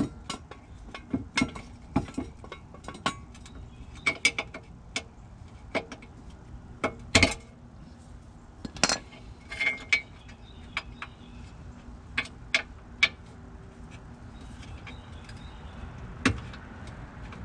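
Irregular metallic clinks and knocks, a dozen or so sharp hits at uneven spacing, the loudest about seven and nine seconds in, as the Steeda G-Trac K-member brace is pushed and worked into place against the car's underbody.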